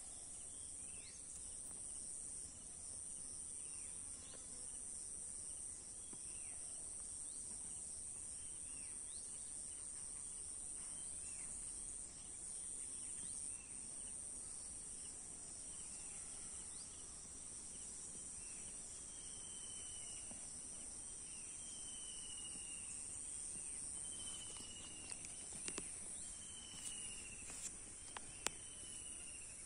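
Steady high-pitched drone of an insect chorus. In the second half a bird repeats a short falling whistle about every one and a half to two seconds, and a few sharp clicks come near the end.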